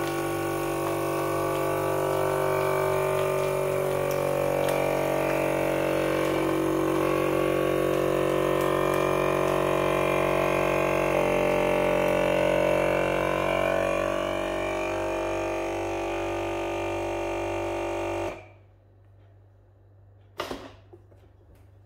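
Vacuum sealer running its vacuum-and-seal cycle on the dry, normal setting: the pump drones steadily, shifts pitch a little about halfway through, then cuts off suddenly near the end. One click follows.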